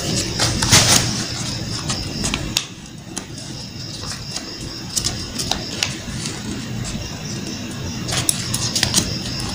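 A sheet of paper being folded and creased by hand on a cloth-covered table: scattered rustles and short crisp scrapes, busiest near the start and again near the end, over a steady high whine.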